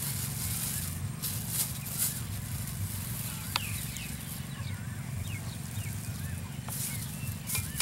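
Thin plastic sheet crinkling in short bursts as it is peeled off a soft log of banana dough, over a steady low rumble and faint chirping calls.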